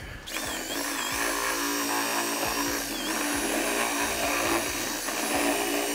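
Cordless drill running steadily as it bores a hole through the plastic tab of a washer fluid tank, its motor whine dipping briefly in pitch about a second in and again about three seconds in.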